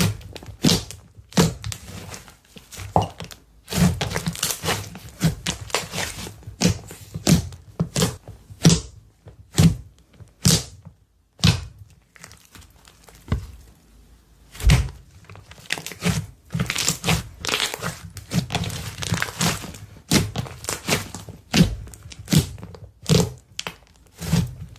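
Slime being squeezed and pressed by hand, giving an irregular run of sharp sticky pops and clicks, several a second, with short stretches of crinkly noise between them.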